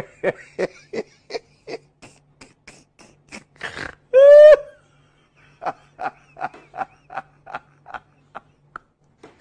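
A man laughing hard in quick, evenly spaced bursts of about three a second. About four seconds in comes one loud, high-pitched squeal that rises and then falls. After a short break the laughing bursts start again and die away.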